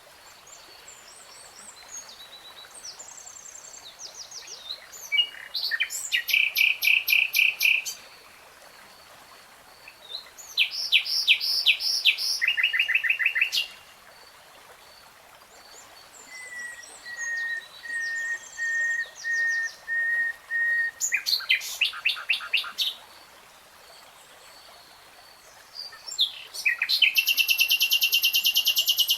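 A songbird singing in separate phrases. Loud, rapid trills of repeated high notes come about five seconds in, around eleven seconds, around twenty-two seconds and near the end, and one long steady whistled note is held for about four seconds in the middle. Fainter chirps fill the gaps.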